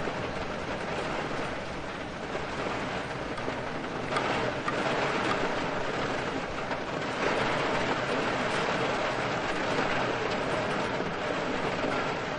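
Steady rain with wind, a continuous hiss that grows louder about four seconds in and again a little later.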